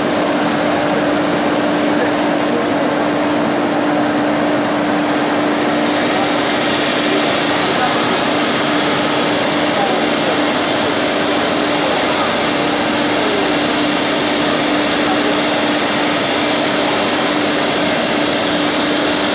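Steady din of woodworking machinery in an exhibition hall: a constant machine hum with one held tone, under a background babble of crowd voices.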